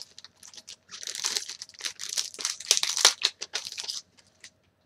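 Plastic packaging crinkling and tearing as a bookmark with a film cell is pulled out of it, a dense spell of rustling in the middle with scattered crackles either side.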